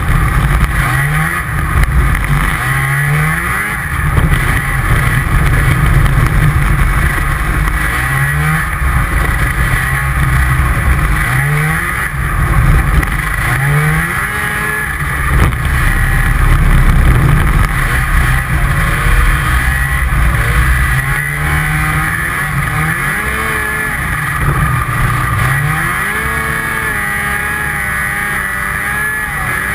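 Snowmobile engine running hard. Its pitch climbs in short rises again and again as the throttle is opened, and near the end it holds a steady pitch.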